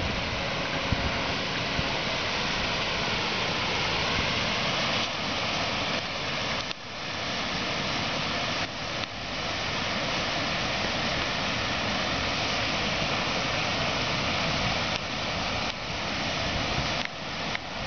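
Steady rush of water pouring through a dam's spillway gates and churning into whitewater below, with a brief dip in level about seven seconds in.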